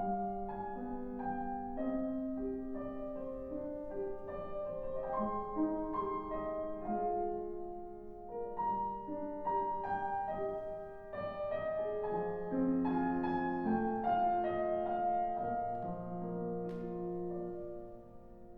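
Classical piano music played live, a continuous flowing line of notes that grows softer near the end.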